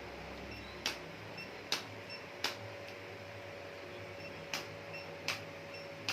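About six sharp, short clicks at irregular intervals, over a steady background hum.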